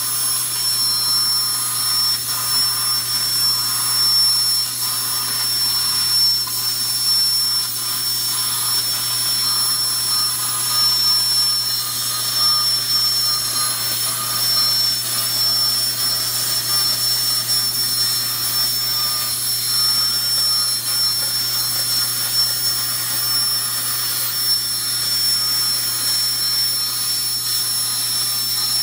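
CNC plasma cutter's torch cutting steel plate: a continuous loud hiss with a thin, steady high whine over a low hum.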